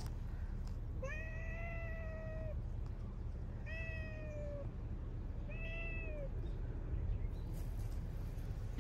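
Black-and-white stray cat meowing three times, the first call the longest, each held at an even pitch.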